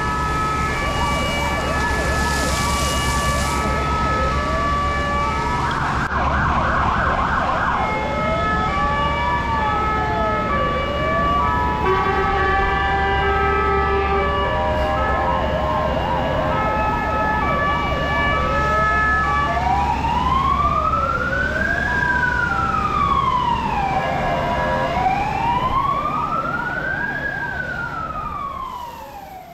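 Several fire engine sirens sounding together over a steady low engine hum. Stepped two-tone patterns run throughout, with a fast warble about six seconds in, and from about two-thirds of the way through, slow wails that rise and fall. The whole fades out at the end.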